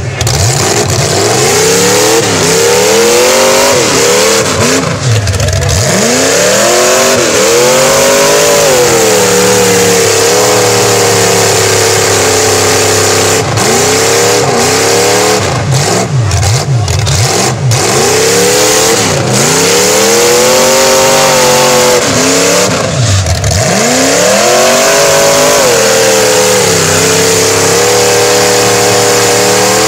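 Mud-bogging 4x4 truck's engine revving hard over and over, the pitch climbing and dropping repeatedly and held high for a few seconds at a time, as the truck churns stuck in deep mud.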